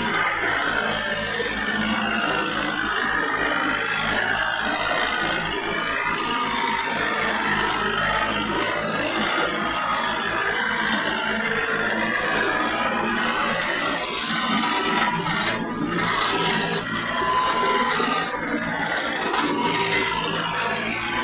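Tractor engine running steadily under load while pulling a rotavator through dry, dusty soil, with a steady rattle. Music plays over it.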